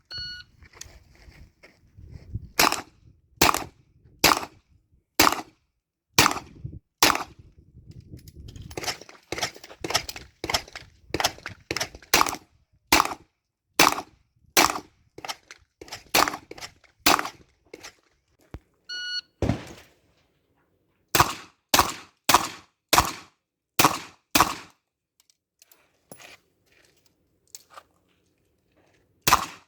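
Electronic shot-timer beep, then a string of pistol shots fired at an uneven pace with short pauses. About nineteen seconds in a second timer beep sounds, followed by a quick burst of about six shots, and one more shot comes near the end.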